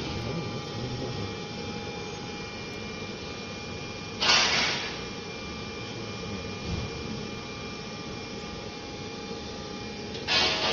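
Steady hum and fan whine of a BGA rework station's heaters and blowers running. Two short bursts of hiss break in, one about four seconds in and one near the end.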